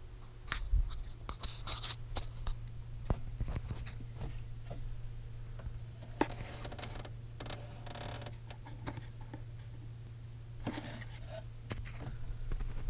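Scattered clicks, scrapes and rustles of hands handling tools or parts, over a steady low hum.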